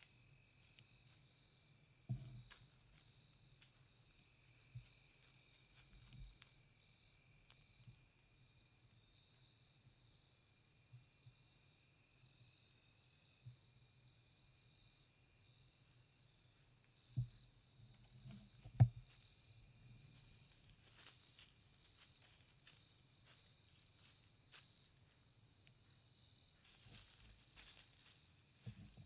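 Steady chorus of insects, a continuous high trill with a softer, lower trill beneath it. A few faint knocks sound about 2 s and 17 s in, with a sharper one near 19 s.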